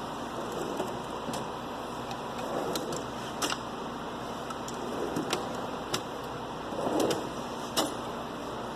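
Metal tool-cart drawers sliding open and shut, with several sharp clacks as they stop and tools shifting inside, over a steady hiss.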